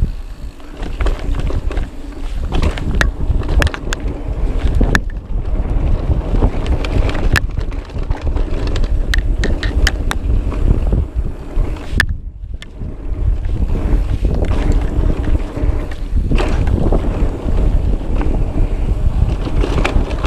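Wind buffeting the microphone and a Cube Stereo Hybrid 140 e-mountain bike rattling down a rough dirt downhill trail, with a steady rumble and many sharp clicks and knocks from the bike and tyres. The sound drops away briefly about twelve seconds in, then picks up again.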